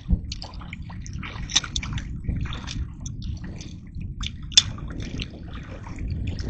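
Water dripping and splashing in irregular small splatters and ticks, over a low steady rumble.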